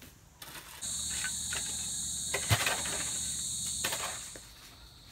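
Steady high-pitched insect drone starts suddenly about a second in and fades away near the end; a single sharp knock midway is the loudest moment.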